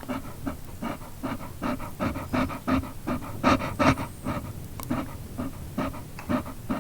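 A dog panting quickly and rhythmically, about three to four breaths a second, a little louder about halfway through.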